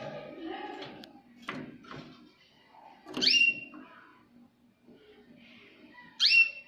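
Jaspe canary calling: two loud whistled notes about three seconds apart, each sliding down in pitch and then holding, among softer chirps and twitters.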